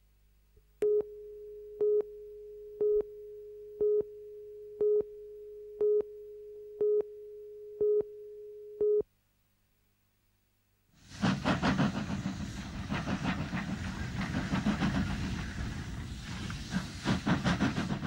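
A steady electronic tone with a short louder pip once a second, nine pips in all, like a tape leader's countdown, stops about nine seconds in. After two seconds of silence, the loud, rough steam and exhaust noise of steam locomotive No. 10 working starts about eleven seconds in.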